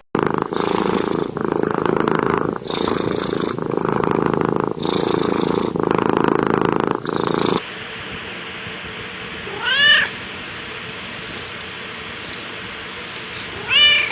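A cat purring loudly right at the microphone, its purr breaking into alternating breath-in and breath-out phases of about a second each, stopping abruptly about seven and a half seconds in. Then a cat meows twice, about four seconds apart, over a faint steady hum.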